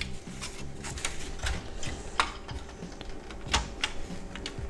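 Scattered light clicks and taps of a car instrument cluster's plastic housing and clear lens being handled and wiped clean, with a few sharper ticks.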